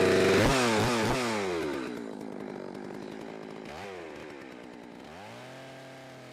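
Perla Barb 91.6cc two-stroke chainsaw revved, then dropping back down to a steady idle. There is a short blip of the throttle about four seconds in.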